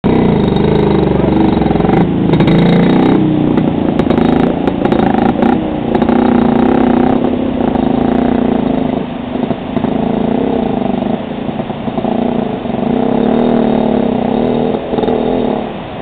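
Motorcycle engine running and revving as the bike is ridden through a shallow, fast-flowing stream, with the rush of the water underneath.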